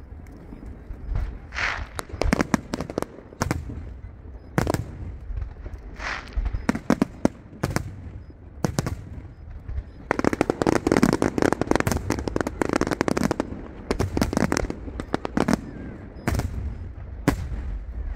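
Fireworks going off: a string of sharp, separate bangs, with a dense stretch of rapid crackling from about ten to thirteen seconds in.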